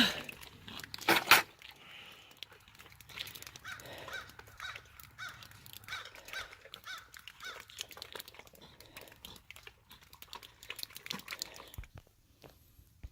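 Crows cawing in a repeated series, over scattered small clicks and rustling. There are two louder knocks in the first second or so.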